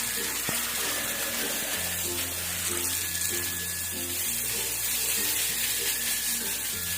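Water running steadily, as when pigs are being washed down, under background music with a stepping bass line.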